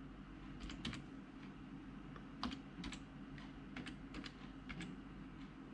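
Keys being typed on a computer keyboard: irregular, light clicks as a message is entered character by character.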